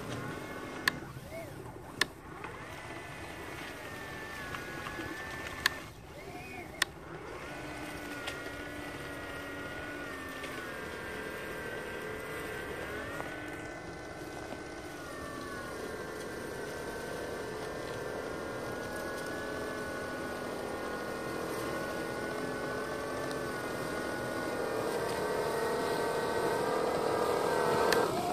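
Motor of a 3D-printed RC snow blower whining steadily as it chews through snow, its pitch dipping and recovering with the load. A few sharp clicks come in the first several seconds. It grows louder near the end as it blasts snow toward the microphone.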